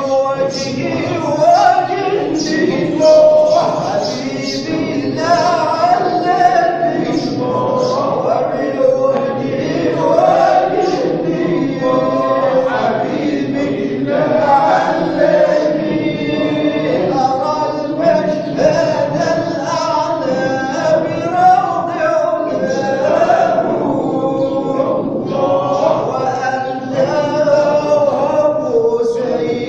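Sufi hadra inshad: a group of voices singing a religious chant together, led by a solo munshid, continuous and steady in level.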